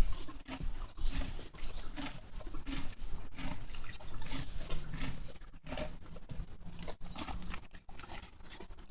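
Horse chewing feed and hay: an irregular run of short crunches.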